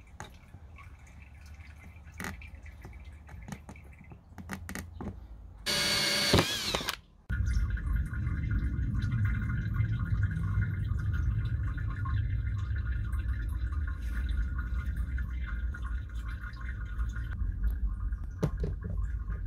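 Return-flow water from the drip tower's pots falling through a hole into the plastic reservoir tub: a steady splashing that booms in the hollow tub and is a bit noisy. It starts about seven seconds in, just after a brief loud harsh noise. Before that there are faint clicks of hands working on the tub lid.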